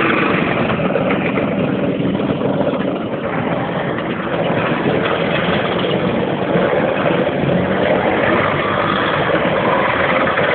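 Many motor scooter engines running together, a dense steady drone with engine pitches wavering up and down as throttles are blipped.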